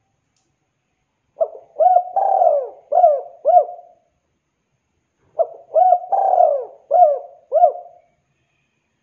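Spotted dove cooing: two identical phrases about four seconds apart, each two short coos, a longer drawn-out coo, then two more short coos.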